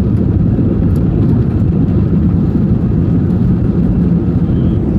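Airbus A319 accelerating on its takeoff roll, heard inside the cabin: a loud, steady low rumble of the jet engines at takeoff power and the wheels on the runway.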